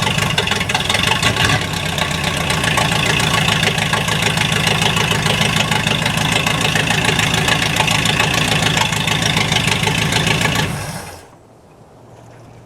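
Rebuilt 1951 Ford flathead V8 running steadily and loudly through a short exhaust pipe, with its distributor not advancing the timing, then switched off about eleven seconds in, the sound dying away quickly to a low background.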